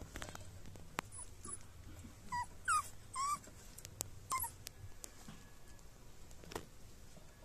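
A 46-day-old Shiba Inu puppy whimpering: four short, high whines that bend in pitch, about two to four and a half seconds in.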